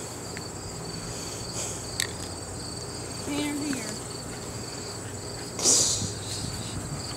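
Insects chirping in a steady, pulsing chorus. About three seconds in there is a brief low hum-like tone, and near six seconds a short loud noisy burst, the loudest moment.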